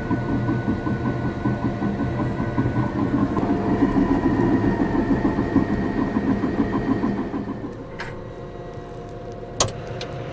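CAT D6 bulldozer's diesel engine running steadily. It drops in level about eight seconds in, and two sharp knocks come near the end.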